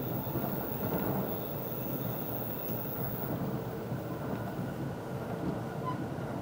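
Joban Line commuter train running at speed, heard from inside the carriage: a steady rumble of wheels on rail with a faint steady hum underneath.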